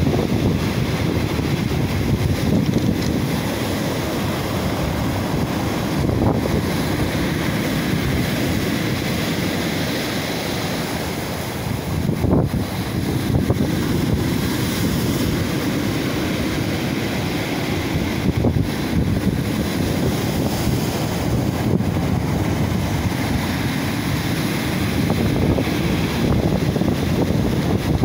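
Rough Black Sea surf breaking and washing over a pebble beach: a continuous rush of waves and foam that swells and eases, with wind on the microphone.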